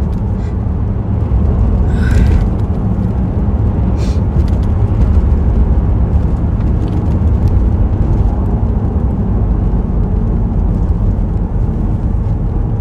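A steady low rumble throughout, with a short breath-like rush about two seconds in and a brief click near four seconds.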